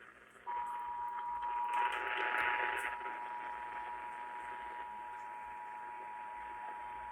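Emergency Alert System attention signal: the two-tone 853 Hz and 960 Hz alert tone, received over broadcast radio, starting about half a second in and held steady, over a hiss of radio noise that swells briefly about two seconds in.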